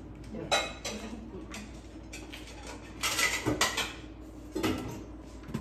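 Saladmaster stainless-steel pan and lid being handled: a string of light metal clinks and knocks, irregularly spaced.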